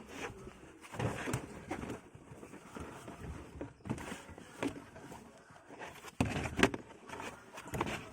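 Car floor mat being handled and fitted into a car's footwell: irregular rustling, scraping and knocks, the loudest knock about six and a half seconds in.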